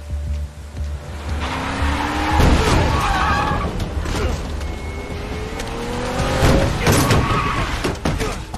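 A car's engine revs up and its tyres screech as it brakes hard on wet road, twice: about two and a half seconds in and again about seven seconds in. Rain hiss and a low drone of film score run underneath.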